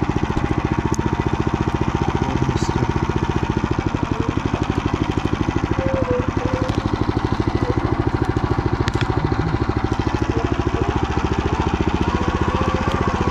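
Motor Sich engine running steadily at an even pace, a rapid regular chugging with no change in speed.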